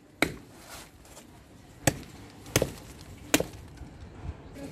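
A blade chopping into the woody trunk of a young potted fruit tree: four sharp strikes at uneven intervals.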